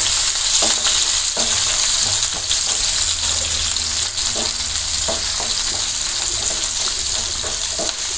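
Chopped onion and green chillies sizzling in hot oil in a non-stick pan with a steady hiss, stirred with a wooden spatula that gives short scrapes and taps against the pan: onions sautéing.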